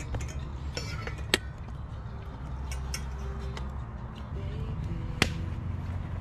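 Cooking utensils and dishes clinking: two sharp clinks about four seconds apart and a scatter of softer clicks, over a steady low rumble.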